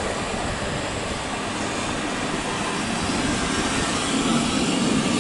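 Twin-engine jet airliner climbing out after takeoff, its engines making a steady rushing noise that swells slightly near the end.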